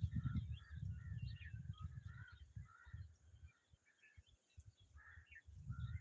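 Faint, scattered short bird chirps and calls, over a low rumble.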